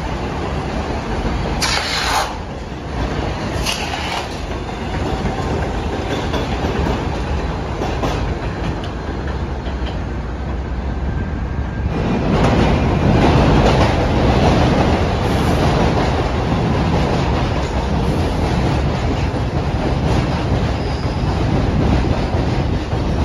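New York City 1-train R62A subway cars running on elevated steel track: a steady rumble with wheels clattering over the rail joints and brief high squeals about two and four seconds in. About twelve seconds in it gets louder as a train comes alongside the platform.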